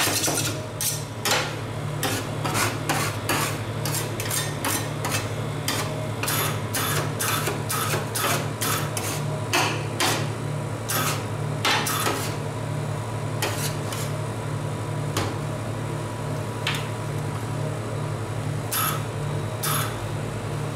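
Metal spatulas chopping and scraping frozen ice cream mixture on a steel cold plate: quick clicks and taps of the blades striking the plate, coming thick and fast at first and thinning out in the second half as the mixture is scraped and spread flat. A steady low machine hum runs underneath.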